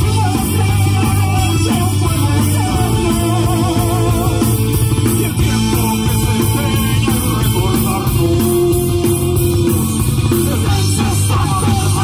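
Live rock band playing: electric guitar, bass guitar and drum kit with cymbals keeping a steady beat, and singing over them.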